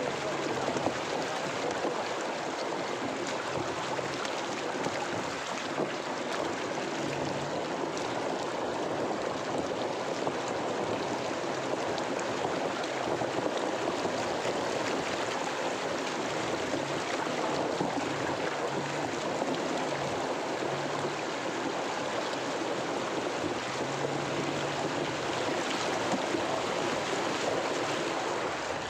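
Off-road vehicle driving through a shallow, stony river: a steady rush of water churning and splashing around the tyres, with the engine running low underneath.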